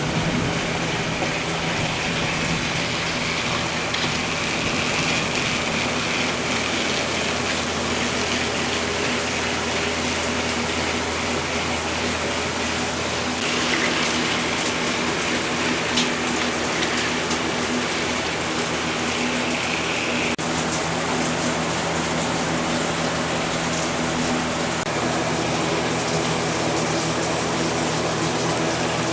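Steady rain falling on a shed roof, a constant hiss, with the hum and whine of a Trackmaster toy train's small electric motor running underneath.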